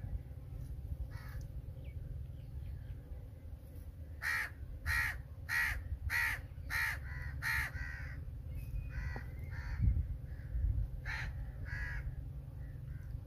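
A crow cawing: a quick run of about six loud caws starting about four seconds in, followed by a few fainter calls.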